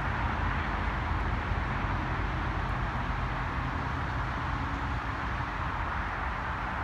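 Steady distant engine rumble under an even hiss, with no rise or fall in level.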